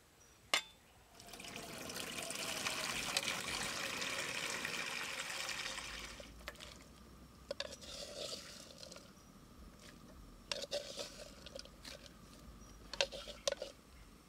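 A single knock, then water pouring steadily into a steel wok for about five seconds, followed by a few short splashes and clicks in the water.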